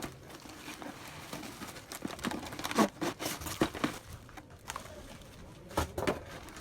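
Parcel packaging being handled and opened: irregular crinkling and rustling of plastic wrapping, with sharp crackles and clicks scattered through it.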